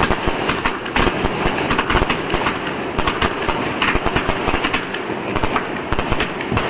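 160-shot aerial fireworks cake firing in rapid succession: a dense, continuous run of launches and bursting cracks, several a second.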